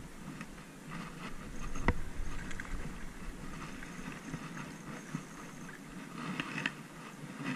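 A small largemouth bass splashing at the surface as it is reeled in on a spinning reel, with scattered clicks and knocks, the sharpest about two seconds in, and a burst of splashing near the end.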